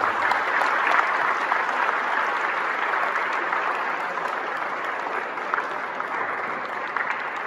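Audience applauding, starting sharply, loudest at first and slowly tapering off.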